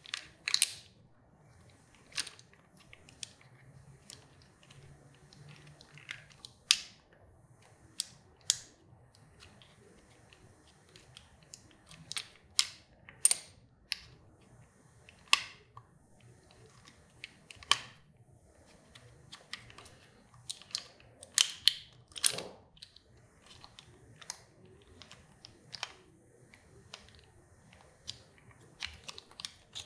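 Irregular sharp clicks and taps of a small screwdriver and a plastic motorcycle handlebar switch housing being handled and pried apart, with short quiet gaps between.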